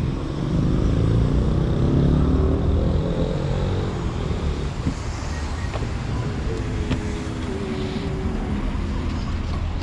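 2019 GMC Acadia Denali running, its engine note rising over the first few seconds and again a little later over a steady low rumble.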